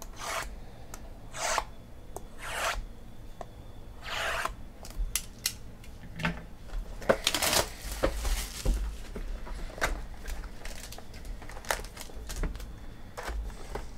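Cardboard boxes of 2017 Panini Limited football cards being handled: a series of short sliding, rubbing swishes and small taps as the boxes are moved and one is opened, with a longer rustle about seven to eight seconds in.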